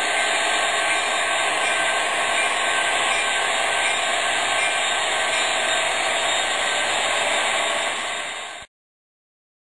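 Proto-Sound 3.0 onboard sound of MTH HO scale SD70M-2 model diesel locomotives, a steady rushing engine sound with faint steady whines, played through small speakers with little bass, over the models running on the track. It dips slightly and then cuts off abruptly near the end.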